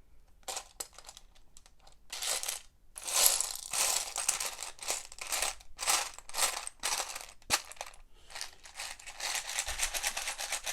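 Loose Lego Technic plastic pieces clattering and rattling as they are sifted through by hand in a search for a part. A few scattered clicks at first, then a busy, continuous clatter from about two seconds in.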